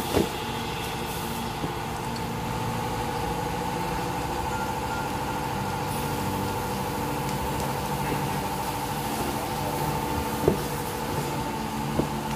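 Steady hum of a machine running, with a few sharp knocks: one right at the start and two near the end, as an aluminium golf-cart wheel rim and the front hub are handled.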